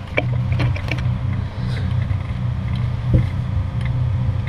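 A steady low rumble, with a few light clicks in the first second and one more about three seconds in, as a wrench works the bolts joining the driveshaft to the pinion yoke.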